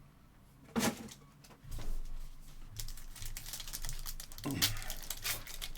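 A single knock about a second in, then dense crinkling and rustling of trading card pack wrappers being handled, growing busier toward the end.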